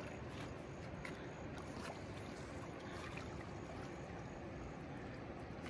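Steady rush of river water flowing over rocks, with a few faint ticks now and then.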